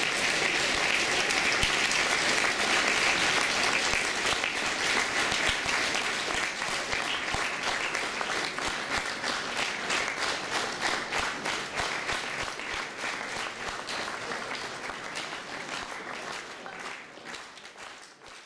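Audience applauding. The clapping thins out into separate claps and dies away toward the end.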